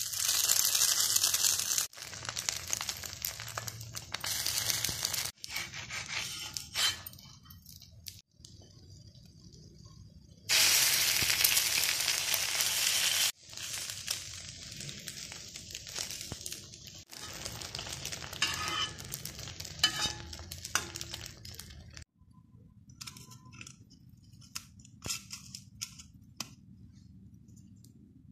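Egg dosa sizzling on a hot griddle (tawa), with a steel spoon scraping and clinking as it spreads the egg. The sizzling comes in loud stretches that cut off sharply. It grows quieter near the end, with only a few clicks.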